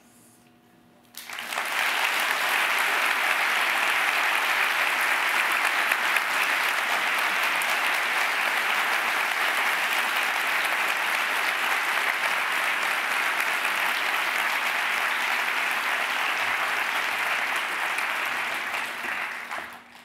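Audience applauding. After a brief hush it starts about a second in, holds steady, and fades out near the end.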